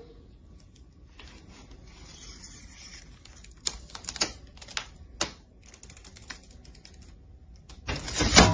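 Clear protective plastic film being peeled off a glass PC-case side panel, crackling as it lifts, with a few sharp snaps about four to five seconds in and a louder stretch of crackling near the end.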